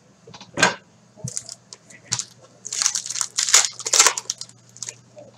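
Wrapper of a hockey card pack being torn open and crumpled by hand: a few short crinkling rustles, then a denser, louder run of crinkling about three to four seconds in.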